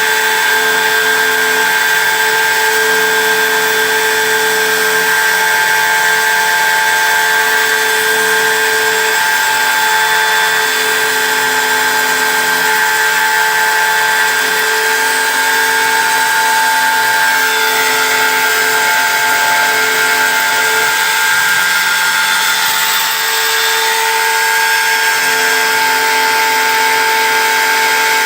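CNC engraving machine running, its spindle giving a steady high whine like a power drill, while lower motor tones start and stop every second or two as the machine moves between cuts.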